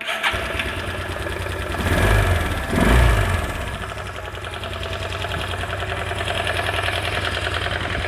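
Bajaj Pulsar single-cylinder motorcycle engine running with a rapid internal knock, blipped twice about two and three seconds in, then settling back. The noise comes from inside the engine and tightening the timing chain has not cured it; the mechanic puts it down to worn engine bearings.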